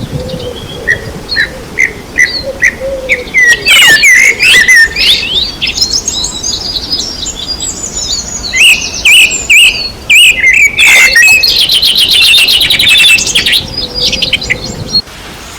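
Several songbirds singing together: quick repeated chirps, gliding whistles and fast trills overlapping. The birdsong cuts off suddenly near the end.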